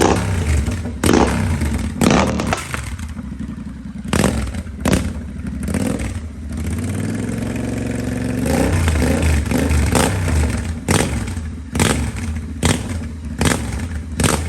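Royal Enfield Interceptor 650's parallel-twin engine running with both mufflers removed, straight out of the open header pipes. The throttle is blipped over and over in short sharp revs, with a steadier held rev from about seven to eight and a half seconds in.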